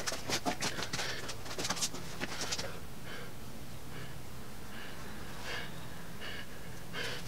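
Close hand-handling sounds: a quick flurry of crinkling and rustling in the first couple of seconds as a silicone tube is set down and a paper shop towel taken up, then faint rubbing while fingers smooth a bead of silicone sealant, over a steady low hum.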